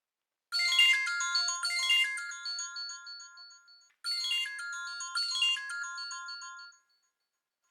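iPhone ringtone playing through the phone's speaker: a bright melody of chiming notes, heard twice, each phrase about three seconds long.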